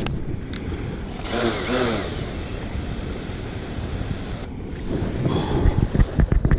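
Wind buffeting the microphone over the wash of surf. A thin, steady high tone sounds for about three seconds starting about a second in. Near the end come several sharp handling knocks.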